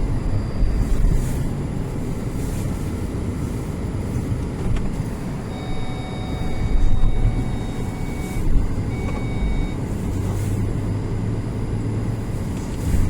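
Car engine running with a steady low rumble while the car sits stuck in deep snow. About halfway through, a steady electronic beep tone sounds for about three seconds, breaks briefly, and sounds again for about a second.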